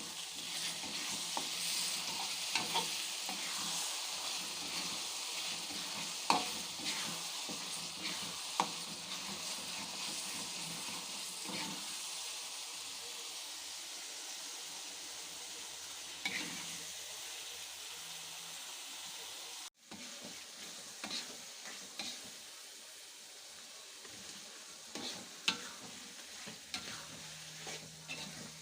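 Sambal jengkol frying in a pan, sizzling steadily with a spatula stirring and clicking against the pan now and then. The sizzle is strongest at the start and eases off, with a brief break about twenty seconds in.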